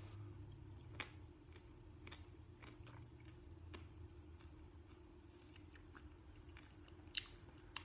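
Quiet chewing of a bite of a Bulla Crunch mint ice cream bar, with faint crunches from its crisp chocolate coating and a sharp click near the end.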